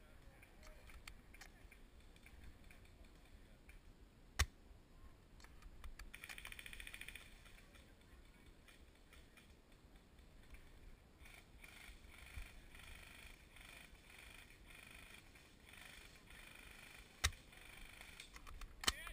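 Airsoft gun shots heard as sharp snaps over a near-silent woodland background: one about four seconds in and two close together near the end. A brief hiss sounds about six seconds in, and faint rustling runs through the second half.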